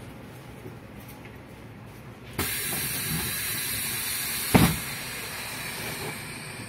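City bus's pneumatic doors opening at a stop. A sudden loud hiss of air starts about two and a half seconds in, and a sharp thud follows about two seconds later as the doors reach their stops. Before this there is only the low rumble of the bus interior.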